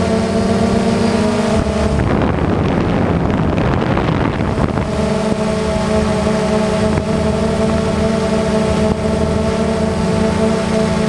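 Quadcopter's electric motors and propellers buzzing steadily in several tones. From about two seconds in, the buzz breaks up into a rough, shifting whir for roughly three seconds, then settles back to a steady hum.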